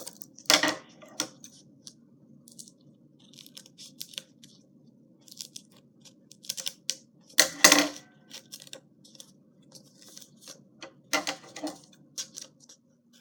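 Paper and tape being handled: scattered short crinkles and crackles, loudest about half a second in, at about eight seconds and at about eleven seconds, over a steady low hum.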